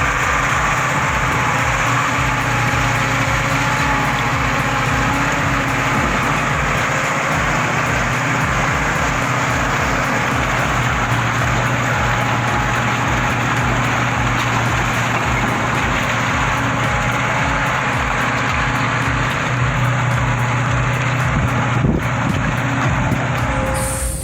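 Heavy logging truck's engine running steadily, with a low, even pulsing and a single knock near the end.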